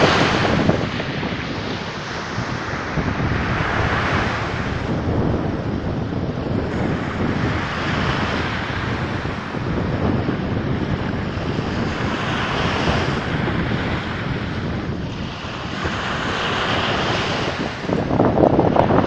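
Sea waves washing in and drawing back, swelling and easing every few seconds, with wind rumbling on the microphone.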